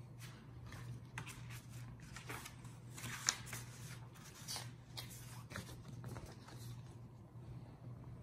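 Paper pages of a thin paperback book being leafed through and rustled, a run of short papery swishes, the loudest about three seconds in.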